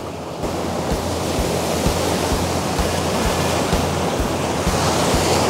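Ocean surf washing onto a beach, with background music whose steady low beat comes in about half a second in.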